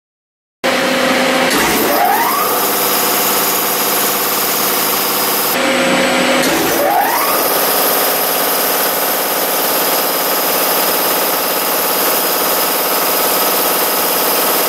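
Belt-driven air compressor starting up: the motor comes up to speed with a rising whine, then runs steadily. The start-up is heard twice, the second about five seconds in.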